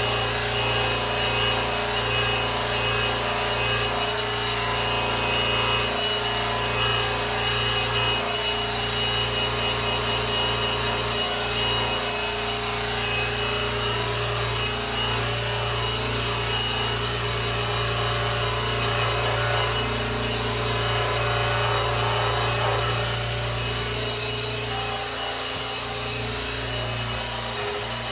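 Power polisher running steadily, buffing the exterior finish of a grand piano.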